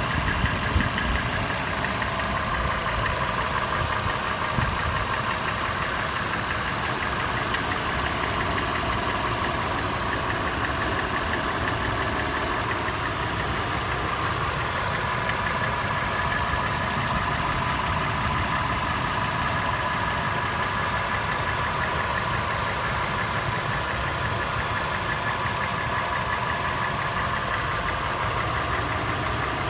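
Toyota FJ engine idling warm with a loud, sharp metallic tapping/knocking that repeats steadily over the engine hum: an abnormal engine noise that the owner is recording to diagnose. There are a few heavier thumps about a second in.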